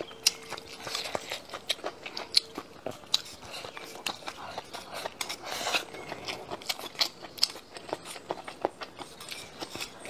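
A person chewing and biting stir-fried green chili peppers with fermented black beans: irregular wet crunches, bites and sharp little clicks.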